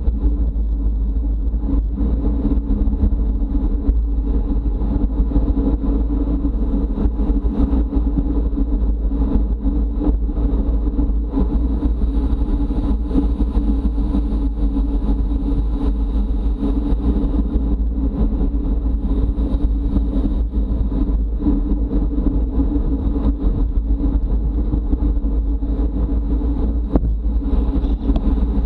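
Steady wind and road noise from a bicycle ridden at racing speed, heard on the rider's camera: a constant low rumble with a steady hum above it.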